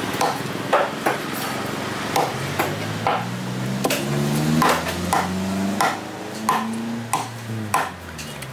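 Large curved cleaver chopping a snapper fillet into chunks against a wooden chopping block: repeated sharp chops, roughly two a second, with a low hum underneath through the middle.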